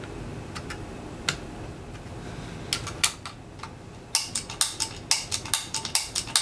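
Small hard clicks and taps from the footswitch assembly of a Fulltone GT500 overdrive pedal being worked by hand. A few single clicks come first, then from about halfway through a quick, fairly even run of sharp clicks, about four or five a second.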